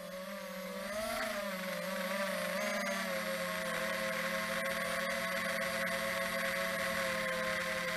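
FPV drone's electric motors and propellers humming steadily; the pitch wavers a little in the first second or two, then holds even.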